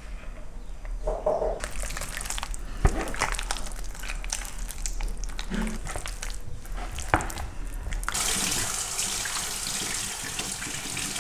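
Hands rubbing marinade into a raw lamb leg: irregular wet squelches and slaps. About eight seconds in, a kitchen tap starts running steadily into a sink as the hands are washed under it.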